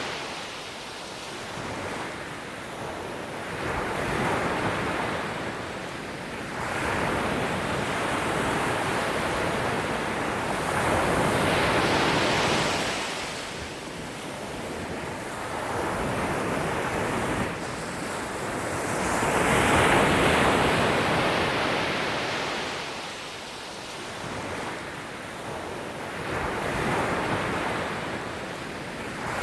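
Sea waves washing in and breaking on the shore, in a steady rise and fall of surges every few seconds. The biggest swells come about twelve and twenty seconds in.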